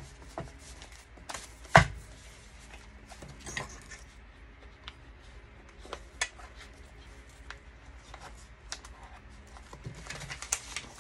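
Sheets of printed cardstock being handled and laid on a cutting mat: paper rustling with scattered taps and knocks, the sharpest about two seconds in.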